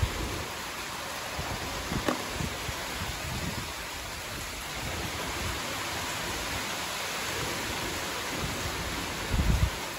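Steady hiss of falling rain, with a few light clicks and a short dull bump near the end.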